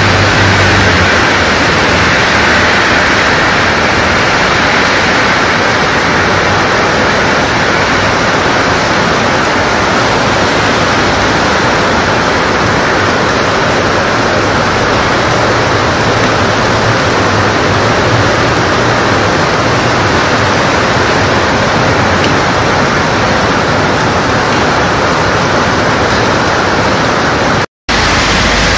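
Heavy tropical rain falling in a steady, dense hiss. The sound cuts out for an instant near the end.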